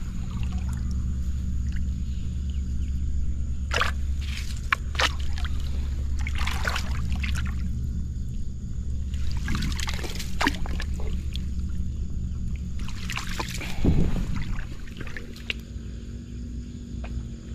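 Water splashing and sloshing in irregular bursts as hands work in shallow muddy water around a submerged wire-mesh fish trap, the loudest splash near the end. A steady low hum runs underneath.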